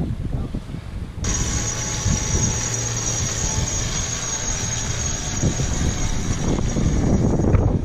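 A steady, high-pitched mechanical whine with a low hum beneath it, cutting in abruptly about a second in. Before it there is a short stretch of wind and water noise.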